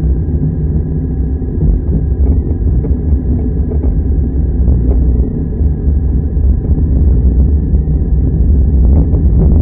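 Car engine and road rumble heard from inside the cabin as the car drives slowly along a rough rural road, with occasional light knocks.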